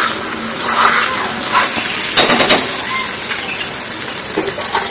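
Wooden spatula stirring and scraping egg bhurji around a metal kadai over a light sizzle, with a few sharp knocks against the pan about two seconds in.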